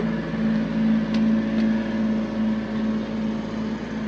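Small engine of a Japanese kei mini truck idling fast while still cold, a steady hum with the air-conditioning blower running in the cab. A couple of faint clicks about a second in.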